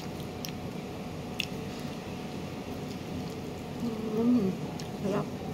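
A person chewing a forkful of avocado salad, with a few soft clicks in the first second or so and a short hummed "mmm" about four seconds in.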